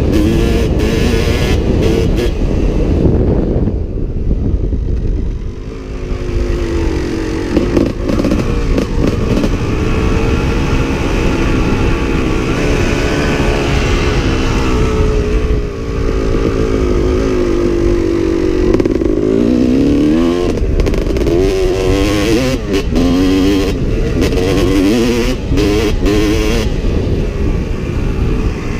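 2005 Kawasaki KX250 two-stroke dirt bike engine running under throttle, its pitch rising and falling again and again as it is revved through the gears, easing off briefly about five seconds in. Heard from the rider's helmet.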